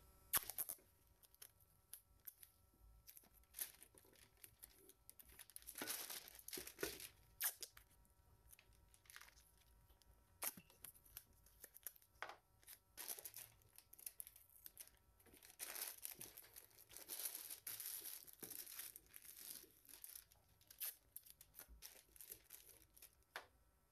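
Faint masking tape ripping as strips are pulled off and torn, with stiff kraft paper crinkling as it is pressed down. The sound comes in irregular short rips and rustles, with a few longer pulls.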